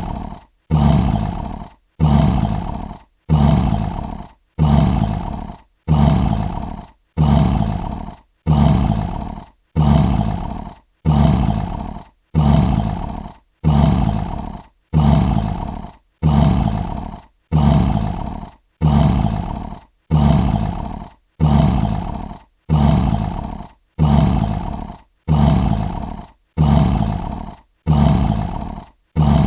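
A short lion roar, looped: the same snarling roar repeats about every one and a half seconds, each one starting suddenly at full loudness and fading out before the next.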